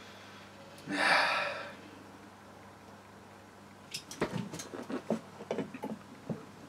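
A sharp breathy exhale after a mouthful of strong beer, about a second in. From about four seconds in comes a run of light clicks and knocks as the beer can and glass are handled on the table.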